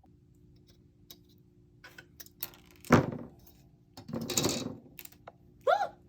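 Snap-fit plastic model parts being handled: scattered light clicks, a sharp plastic knock about three seconds in, a rustling scrape around four and a half seconds, and a short rising-and-falling tone near the end, over a faint steady hum.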